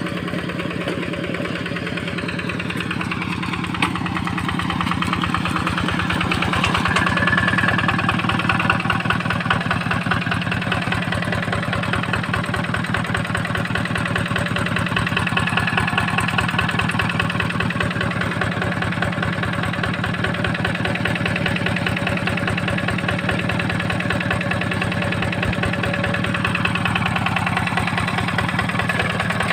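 Paddy-field tractor engine running steadily with even firing pulses, picking up slightly around six to nine seconds in.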